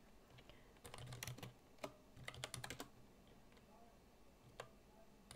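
Faint typing on a computer keyboard: a quick run of keystrokes about a second in, another run between two and three seconds in, and a single keystroke near the end.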